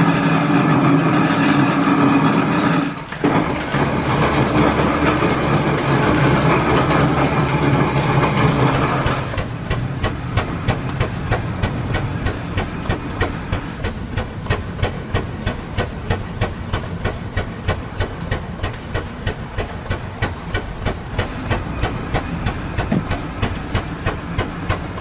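For about the first nine seconds, an 1897 metal planer runs under belt drive as it cuts, a steady mechanical sound with a brief dip near three seconds. Then the stationary steam engine's exhaust chuffs steadily out of its outdoor pipe, an even beat a couple of times a second.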